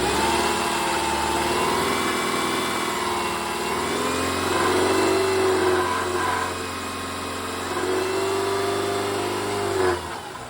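2010 Subaru Forester's flat-four engine held at raised revs, with a grinding rattle that the owner traced to a loose exhaust heat shield; the revs drop suddenly near the end.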